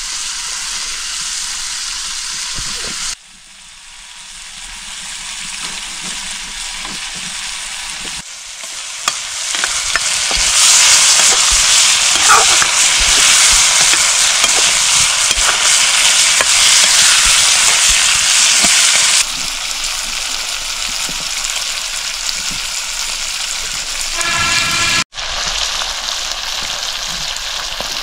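Food sizzling and frying in a hot pan, a steady hiss that drops and jumps in level at several cuts and is loudest in the middle stretch.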